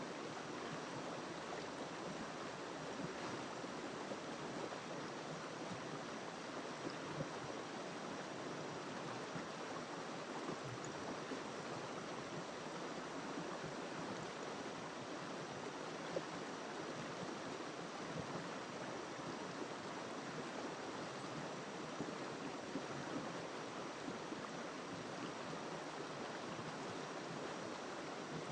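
River water flowing steadily over its bed, an even rushing that does not change.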